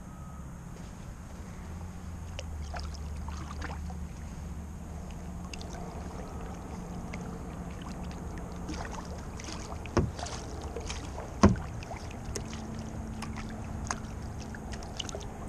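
Kayak paddle dipping and water lapping against a plastic kayak hull, over a steady low wind rumble on the microphone. Two sharp knocks come about a second and a half apart, two-thirds of the way through.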